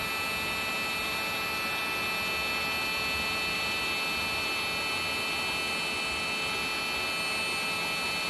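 Electric heat gun running steadily: its fan gives a constant rush of air with a thin, high whine, as it heats a solder-seal wire connector until the solder ring melts.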